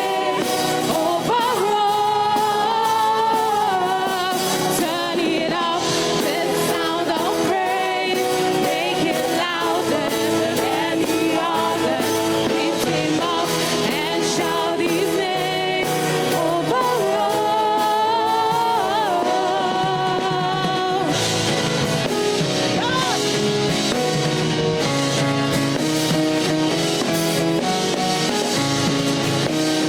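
Live gospel praise music: a vocalist singing over a band with drum kit and guitar. About 21 seconds in, the singing eases and the band carries on more strongly.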